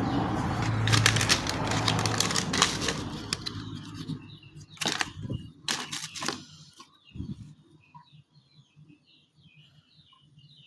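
Rustling handling noise with many sharp clicks, then a few loud separate clicks about five seconds in. After that, faint high chirps from small birds repeat quickly.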